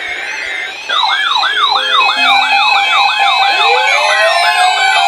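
Several NOAA weather alert radios sounding their electronic alarms at once. About a second in, a loud fast-warbling siren tone starts, rising and falling about three times a second. Halfway through a second tone joins it with a rising wail, and near the end a pulsed beeping.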